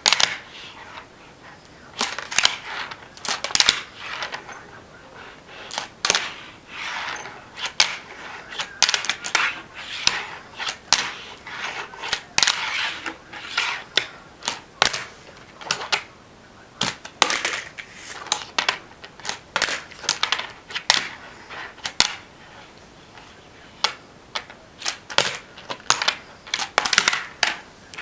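Handboard flat-ground tricks on a tabletop: repeated sharp clacks as the little skateboard's deck pops and its wheels slap down on the table, in irregular clusters of a few hits at a time.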